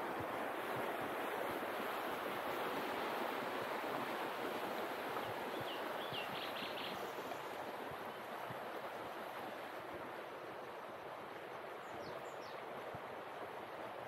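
Steady rush of flowing river water, growing a little fainter in the second half.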